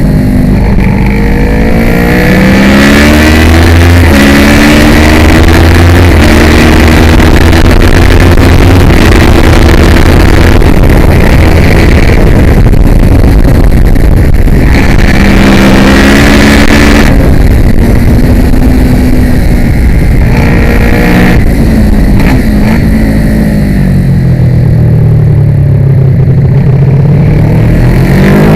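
Kawasaki ER-6 649 cc parallel-twin race engine heard onboard at full race pace, loud, revving up and changing gear again and again. Near the end the revs fall low as the bike slows for a corner, then climb again under acceleration.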